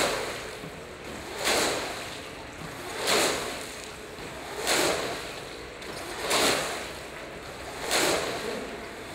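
BMX tyres rolling on the concrete of a fullpipe drain. A whoosh swells and fades six times, about once every one and a half seconds, as the rider carves from wall to wall.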